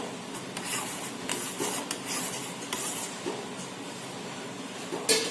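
Spoon scraping and stirring in a pot of boiling water with tulsi leaves and cumin for kadha, in short irregular strokes, with one sharp metal clink near the end.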